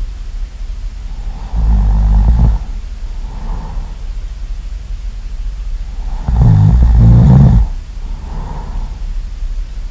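A person snoring loudly: two long snores about four and a half seconds apart, each lasting about a second, with softer breaths out between them.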